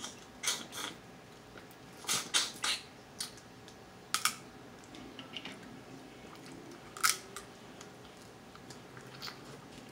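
Dungeness crab being eaten by hand: scattered sharp clicks and cracks of shell being broken and picked apart, mixed with sucking and smacking as meat is pulled from the shell at the mouth. There is a quick run of cracks about two seconds in and single snaps every couple of seconds after.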